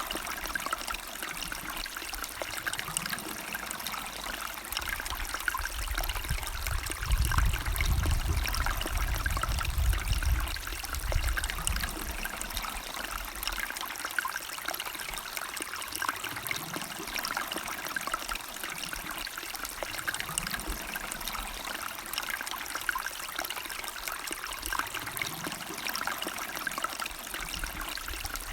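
Stream water trickling and babbling steadily. A low rumble swells for several seconds partway through.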